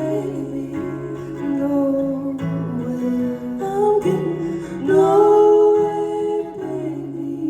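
Live acoustic ballad: acoustic guitar with women's voices holding long, slowly gliding wordless notes in harmony.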